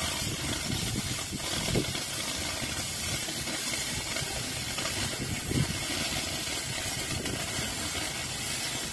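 Gas cutting torch cutting through steel plate: a steady hiss throughout, with two brief knocks about two and five and a half seconds in.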